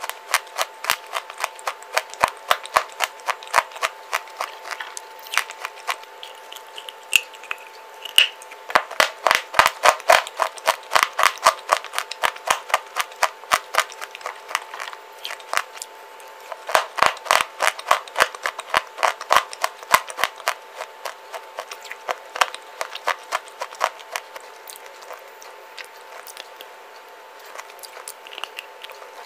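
Dry white clay bar crunched and chewed close to the microphone: rapid runs of sharp, brittle crunches that come in dense spells and thin out near the end.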